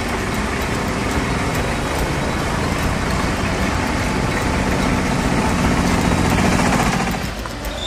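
A convoy of SUVs driving past one after another, engines running and tyres on the road. The sound swells about five seconds in as the nearest vehicles pass, then drops briefly near the end.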